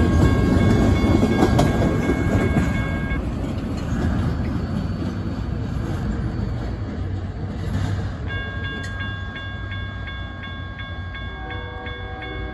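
Intermodal freight train's last well cars rumbling and clattering past on the rails, the sound fading as the end of the train moves away. A steady high ringing stops about three seconds in, and a rapid, pulsing grade-crossing bell rings from about eight seconds in.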